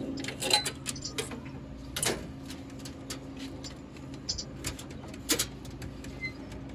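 Scattered clicks and light metal knocks as the nuts are worked off and the card reader's sheet-metal mounting plate is pulled out of a vending machine door. The sharpest knock comes about two seconds in and two more near five seconds, over a steady low hum.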